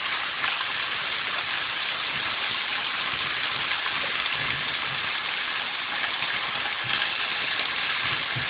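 Chicken breast fillets sizzling steadily in hot olive oil in a frying pan over high heat, a dense crackling hiss as they brown.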